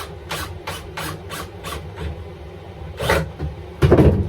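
Rhythmic rasping strokes on wood, about three a second, followed by a louder scrape and a heavier burst near the end.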